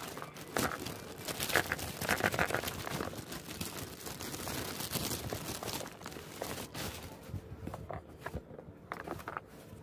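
A plastic courier bag crinkling and rustling as it is handled, loudest in the first three seconds. It then goes quieter, with scattered rustles and taps as a taped cardboard parcel is handled.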